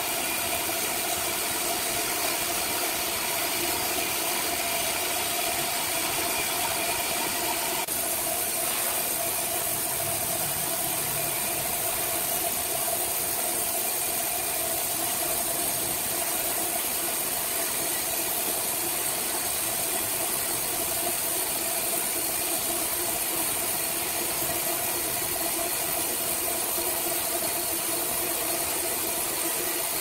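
Horizontal band sawmill running, its band blade cutting lengthwise through a log: a steady machine hum with a constant hiss. The sound changes abruptly about eight seconds in.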